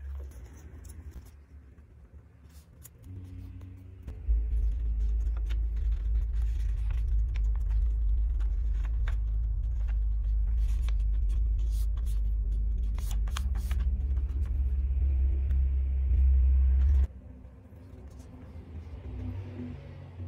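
A loud, steady low rumble that starts suddenly about four seconds in and cuts off suddenly near the end. Over it are light crinkles and taps of paper being handled and folded on a table.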